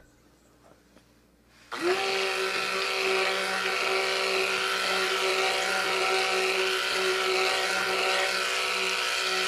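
A stick blender switches on about two seconds in, its motor rising quickly to speed, then runs at a steady pitch in a bucket of cold process soap batter, blending it thick.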